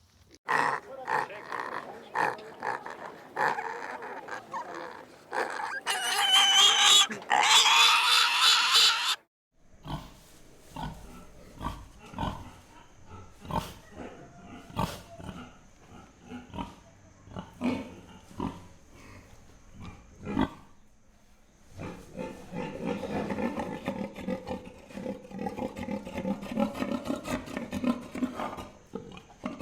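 Domestic pigs grunting and squealing. Loud, high, rising squeals come about six seconds in and cut off suddenly. Quieter snuffling and clicking follows, then steady, rapid low grunting near the end.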